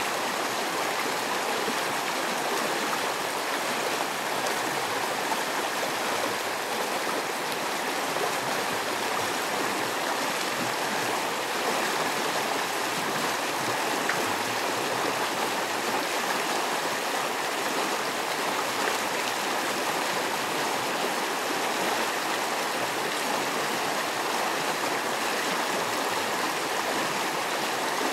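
Small creek running, a steady rush of flowing water.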